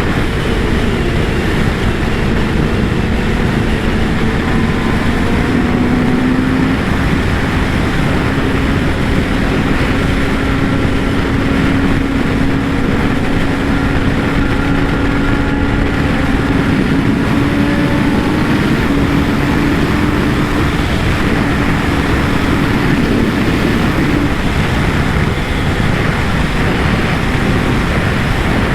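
Kawasaki ZX-10R's inline-four engine pulling at a steady cruise under heavy wind rush. The engine note steps up a little about six seconds in, holds, then drops away near the end.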